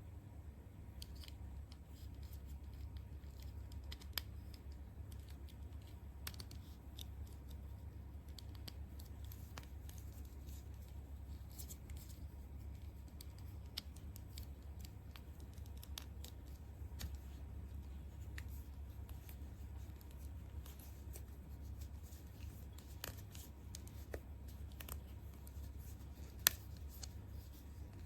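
Light scattered clicks and scratchy ticks, like small objects being handled, over a steady low hum, with one sharper click near the end.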